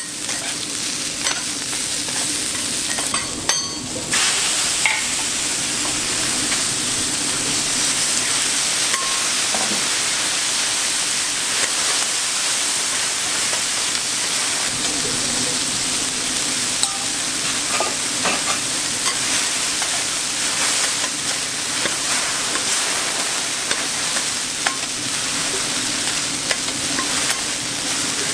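Cabbage, pork and yakisoba noodles sizzling steadily on a hot teppanyaki iron griddle, with metal spatulas scraping and clicking on the plate as the food is turned.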